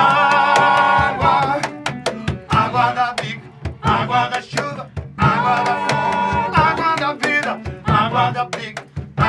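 Live band music: a snare drum struck with sticks in a busy rhythm, with bar chimes and cymbal, while voices hold long sung notes near the start and again about four seconds in.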